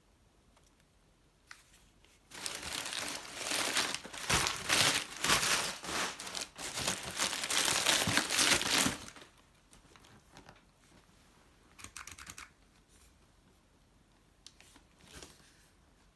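Packaging crinkling and tearing as it is handled and pulled open, in a dense stretch lasting about six seconds, then a few faint rustles later on.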